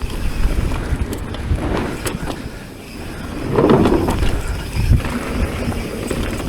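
Mountain bike rolling over a rough dirt trail: a continuous low rumble of tyres and rattling bike, with a few sharp knocks from bumps and a louder surge partway through.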